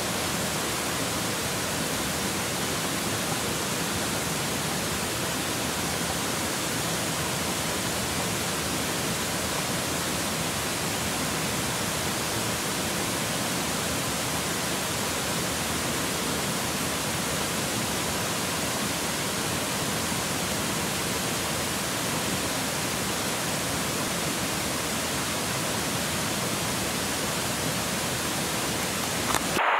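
Mountain river water rushing: a steady, even rush of noise with no change. It cuts off suddenly at the very end.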